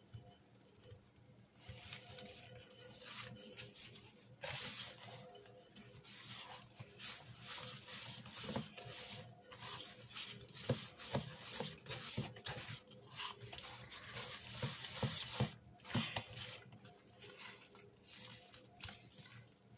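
A sponge squeezed and swished by a rubber-gloved hand through wet, pasty cleaning powder: soft wet squishing with irregular crackles and pops, busiest in the middle stretch.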